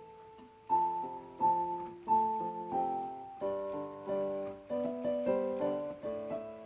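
Background piano music: a gentle melody of struck notes over held chords, about one or two notes a second.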